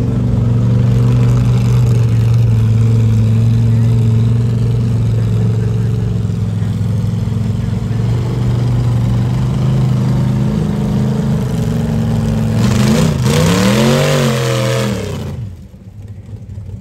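Engine of a lifted, Jeep-bodied mud buggy running steadily as it churns through deep mud. About three-quarters of the way in it revs up and back down with a loud rush of noise, then drops off sharply.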